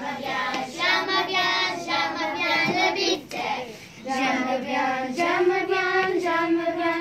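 A class of schoolchildren singing a song together, with a short break a little over three seconds in before the singing resumes.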